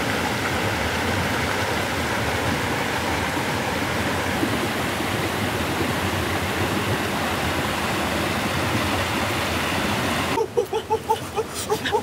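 Steady rush of flowing stream water. About ten seconds in it cuts off and short high calls and clicks take over.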